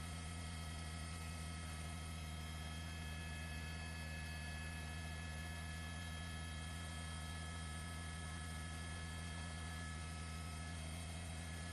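Steady electrical hum with several thin high steady tones over a faint hiss, the sound of an open broadcast audio line.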